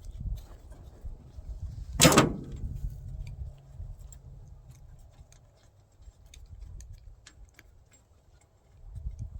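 A single loud knock about two seconds in, with a brief low ring after it, followed by scattered light clicks and clinks of hand tools and small hardware being handled.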